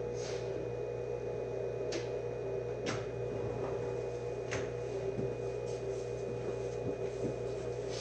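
Steady electrical hum inside a JR West 105 series electric train standing at a station, its on-board equipment running while the traction motors are idle. Four faint clicks come in the first half.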